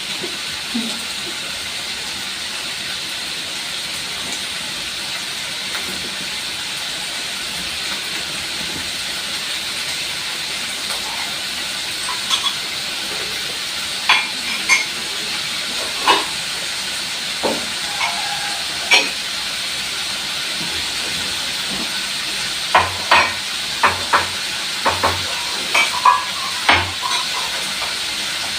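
Food frying in hot oil in a pan, sizzling steadily, with sharp taps and scrapes of a spatula against the pan that start about halfway through and come thicker near the end.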